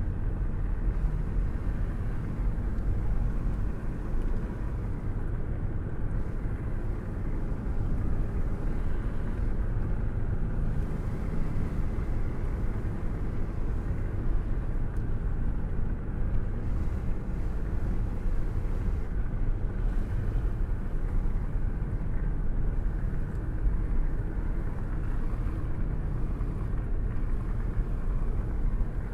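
Steady rain with a deep, continuous low rumble beneath it.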